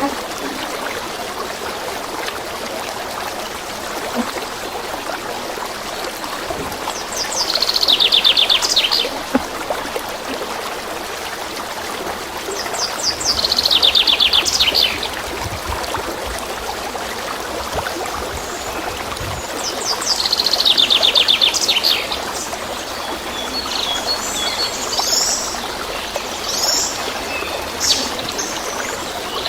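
Songbird singing: three loud trilled phrases of about two seconds each, rapid notes sliding down in pitch, repeated every six seconds or so, then softer scattered chirps near the end, over a steady hiss.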